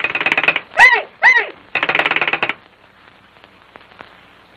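Wall-mounted crank telephone being cranked, its bell rattling in two quick bursts about a second apart, with two short high calls that fall in pitch, in a cartoon voice, between them.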